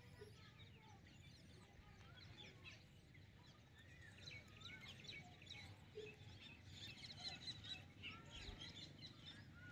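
Faint small birds chirping, busiest in the second half, over a low, steady background noise.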